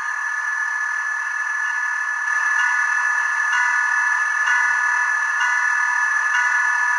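Diesel engine sound from the MRC sound decoder of an HO scale NRE Genset model locomotive, played through its tiny onboard speaker. It runs steadily with a thin, high drone and steps up a little in loudness a few times as it is notched up.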